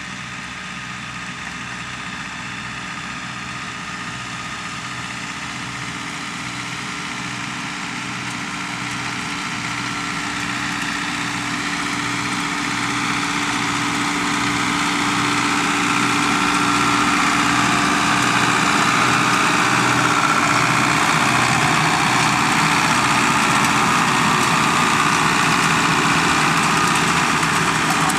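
Tractor engine running steadily, growing louder over the first half or so as it draws nearer, then holding level.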